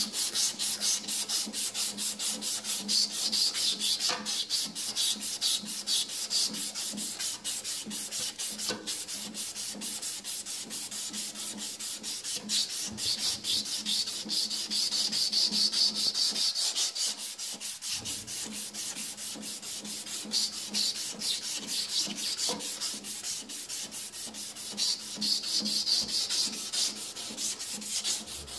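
A strip of emery cloth pulled back and forth around the rusty steel shaft of a Hartzell vaneaxial fan, rasping in quick, even strokes as it scrubs rust off the shaft.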